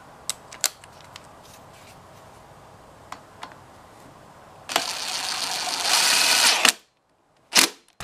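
Small clicks of a nut driver working the leaf blower's carburetor mounting bolts, then about two seconds of loud rushing, rubbing noise from the camera being handled that cuts off abruptly, and one sharp knock near the end.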